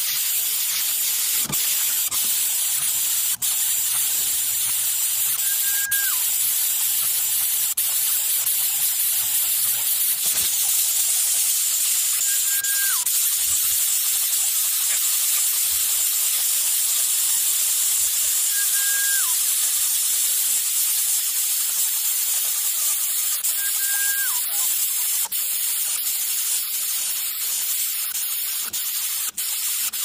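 A steady high hiss, with a short whistled note that drops in pitch at its end repeating about every six seconds.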